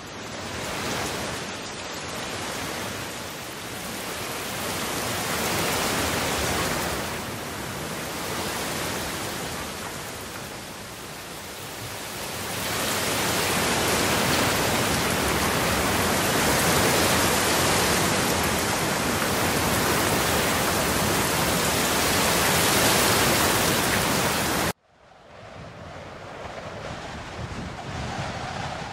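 Heavy rain falling, a loud steady hiss that swells and eases in waves. Near the end it cuts off abruptly and a fainter steady hiss follows.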